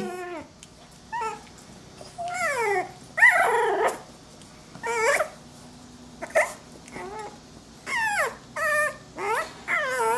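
Cavalier King Charles Spaniel puppy whining and yipping: a string of about ten short, high cries, each falling in pitch, with short pauses between.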